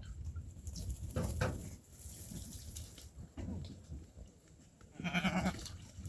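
A sheep bleats once, about five seconds in, over a steady low rumble.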